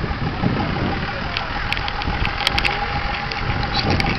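Dodge Ramcharger's engine running at low speed as the truck crawls over rocks, with scattered sharp clicks about halfway through and near the end.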